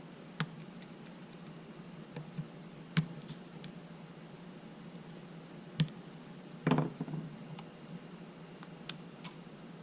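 Scattered small clicks and knocks of camera parts and tools being handled on a workbench: a few single taps, then a short clatter about two thirds of the way through, over a steady low hum.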